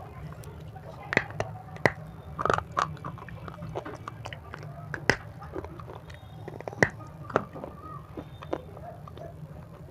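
Close-miked biting and chewing of a hard, crunchy white edible 'stone': a string of sharp, irregular cracks as pieces snap off, with softer chewing crunches between.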